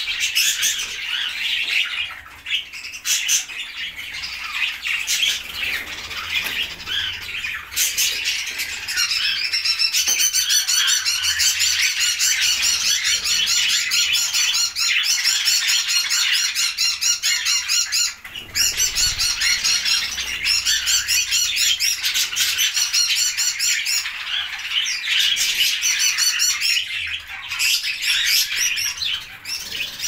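A flock of budgerigars chattering and squawking without a break, with wings fluttering as birds fly about the cage. The chatter grows denser and louder about ten seconds in.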